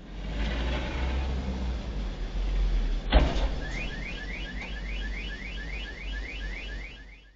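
Street traffic noise with one sharp bang about three seconds in as a box truck and a van collide, then a car alarm sounding in short rising chirps, about four a second.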